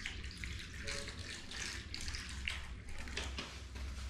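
Water poured from a plastic bottle into a metal pan, splashing over potatoes as they are rinsed by hand, in irregular gushes.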